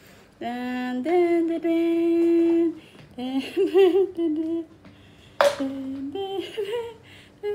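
A voice humming a slow tune with long held notes, a few shorter wavering notes in the middle, and a single sharp click about five and a half seconds in.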